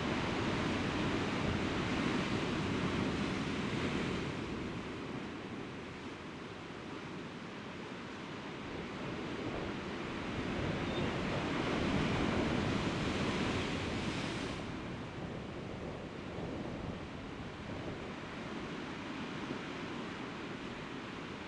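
Sea surf washing against a rocky shore, a steady rush of water that swells near the start and again about halfway through.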